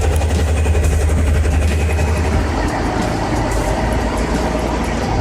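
Heavy vehicle engine running with a deep, steady rumble that loosens and changes about halfway through.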